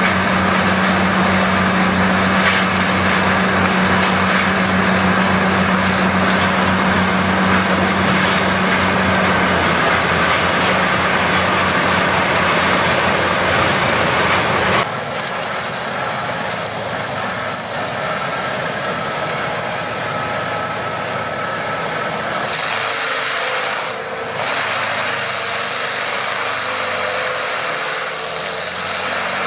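Heavy forestry machinery running: a large tracked tree harvester's engine and cutting gear run with a strong steady hum and a fast rhythmic beat. About fifteen seconds in the sound cuts abruptly to a quieter, different machine sound, and near the end a tractor-driven forestry mulcher is heard grinding a tree stump.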